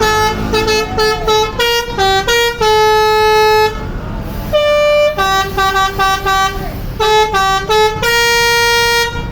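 A bus's 'telolet basuri' musical horn playing a song medley: runs of short quick notes and held tones in two phrases with a brief pause between, ending on a long held note.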